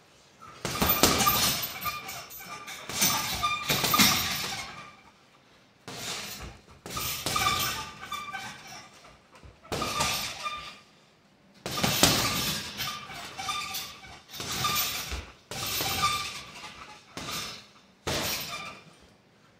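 Flurries of punches landing on a hanging Zebra heavy bag, about nine in all, each setting the bag's chain rattling and jingling, with short quiet pauses between flurries.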